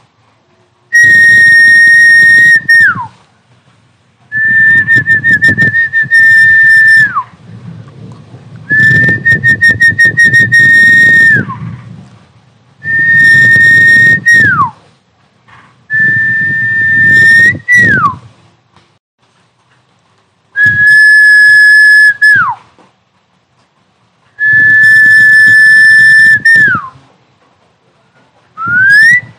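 Recorded snakehead-fish calling whistle played as an MP3 through a loudspeaker: about seven long, high whistles every few seconds, each held on one pitch and then sliding down at its end, some starting with a quick warble, with a rough low noise under each. Near the end a new whistle begins with a rising slide.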